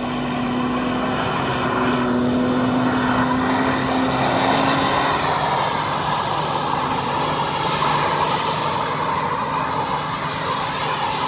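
Cummins 6.7-litre inline-six turbo-diesel of a 2019 Dodge Ram held at steady high revs in a burnout, its rear tyres spinning on the pavement with a continuous hiss. It swells slightly between about two and five seconds in.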